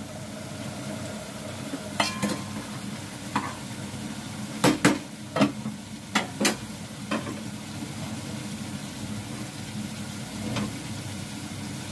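Beef and masala sizzling steadily as they fry in a steel pot, at the bhuna stage of browning the meat. Sharp metal clinks and knocks of a spoon against the pot break in every so often, the loudest in a quick cluster around five to six and a half seconds in.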